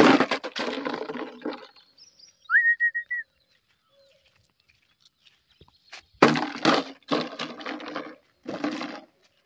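A single short whistle about two and a half seconds in, gliding up and then holding one pitch for about half a second, between bursts of loud rustling noise at the start and again near the end.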